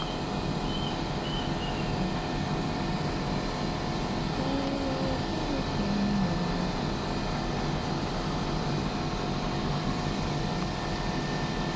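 Steady, even hiss of a thin layer of water heating and bubbling in a non-stick frying pan under frozen gyoza.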